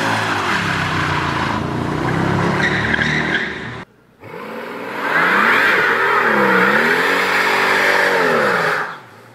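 Two burnouts. First, a Mercedes-Benz W211 E-Class AMG V8 is held at high revs with its rear tyres spinning, cut off just before 4 s. Then a W221 S-Class AMG revs up, dips and rises again over a loud tyre squeal as its rear tyres spin in smoke, dying away near the end.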